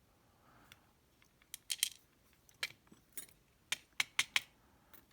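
Small metal parts of a disassembled Zeiss Ikon SK6 lock cylinder clicking and tapping against each other and a tool while being handled: about a dozen sharp, irregular clicks.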